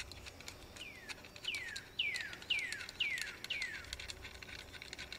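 A bird singing a run of six clear down-slurred whistles, about two a second. Faint clicks of a plastic tailgate handle being handled sound under it.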